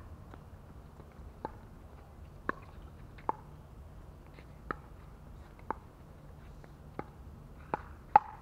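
Pickleball rally: paddles hitting a plastic pickleball back and forth, about eight sharp hits roughly a second apart, coming quicker near the end, where the loudest hit falls.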